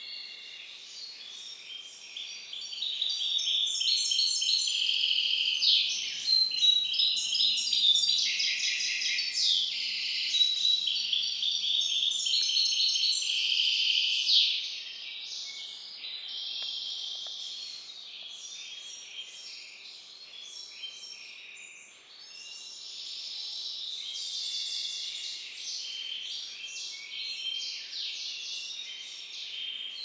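Goldfinch × canary hybrid (mule) singing: a long, unbroken run of rapid, varied notes and trills, loudest through the first half and softer after that.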